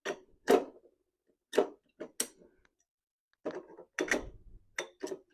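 Animatronic leg poles being handled and fitted into place: a string of irregular clicks and knocks, some with a short rattle.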